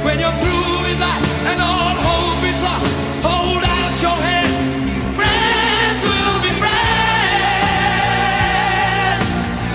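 A song playing: a singer holding long, wavering notes over a steady full-band backing.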